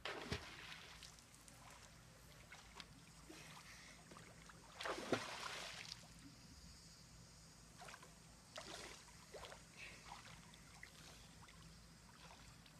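Swimmer moving through pool water, making quiet splashing and sloshing. There is a louder splash at the start and another about five seconds in, then a few smaller splashes around eight to nine seconds.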